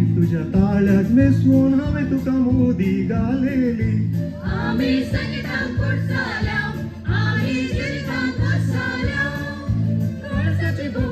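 A mixed group of adults, mostly women, singing a song together into microphones, backed by accompaniment with a steady, evenly repeating bass beat.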